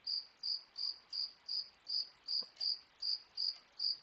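A cricket chirping steadily, short high chirps at an even pace of about two a second.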